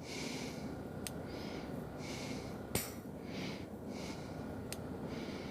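The high-low range switch on a Volvo truck's gear lever being clicked three times, each click followed by a short hiss of air as the pneumatic range shift is worked, with the engine running steadily underneath.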